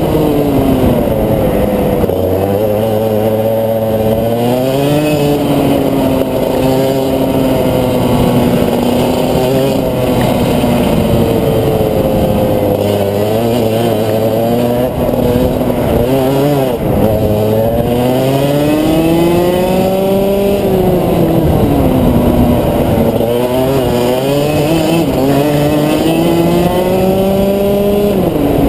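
Rotax Max 125cc single-cylinder two-stroke kart engine at racing speed, its pitch climbing as it revs out along the straights and dropping each time the driver lifts and brakes for a corner, over and over through a lap.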